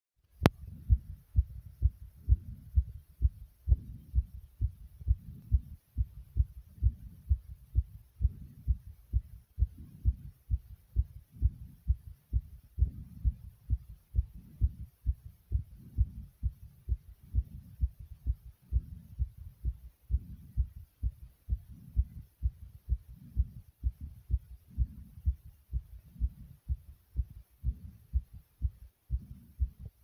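Human heartbeat pounding hard: a steady, regular run of low, dull thumps, about two a second.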